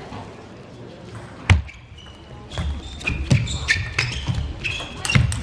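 Table tennis rally: the plastic ball clicking off the rubber bats and the table in quick succession, about three hits a second, after a single sharp knock about a second and a half in. Short high shoe squeaks and footwork thuds on the court floor come between the hits.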